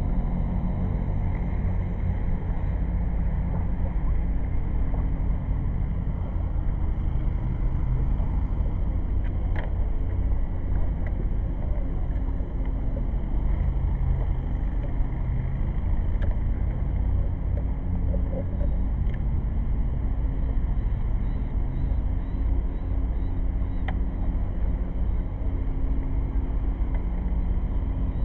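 1994 Sea-Doo's two-stroke Rotax engine idling steadily in an open engine bay, its carburetors running bare without a flame arrestor or intake box.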